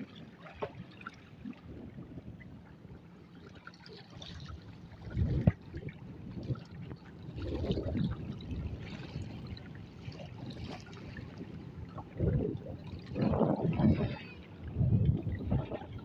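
River water splashing and lapping around a small boat, in uneven swells that grow louder about five seconds in and again near the end.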